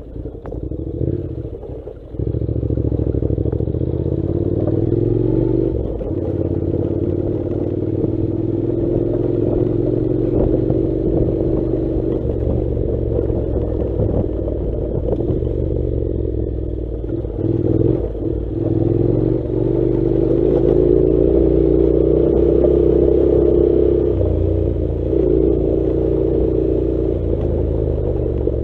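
Honda NC700's parallel-twin engine pulling the motorcycle along a dirt track, its pitch rising and falling with the throttle. It drops back briefly about two seconds in and again a little past halfway before picking up, with some clattering over the rough ground.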